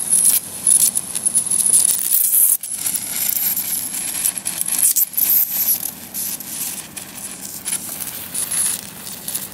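High-voltage arcs from a TV flyback transformer crackling and burning across foil-backed paper, with a high steady whine from the driver that comes and goes.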